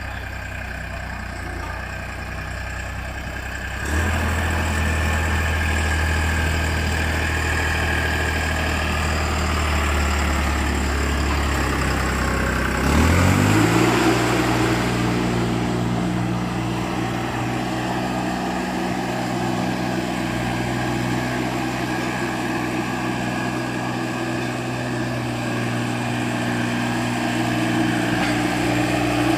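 Mini road roller's engine running at idle. It gets louder about four seconds in, then revs up quickly around thirteen seconds in and holds a steady, higher speed.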